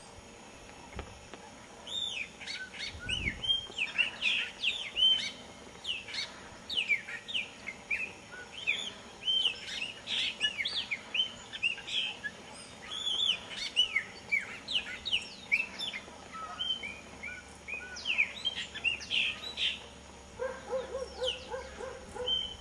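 Chopi blackbird singing a long, varied run of quick whistled notes that slide up and down, starting about two seconds in. Near the end a short burst of lower, quickly repeated notes joins in.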